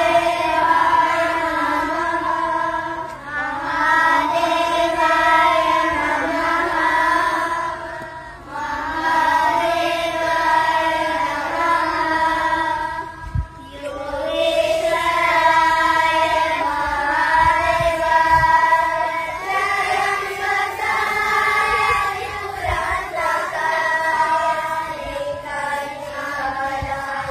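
A group of young female voices singing a devotional chant in unison, in long held phrases of about five seconds with brief breaks between them.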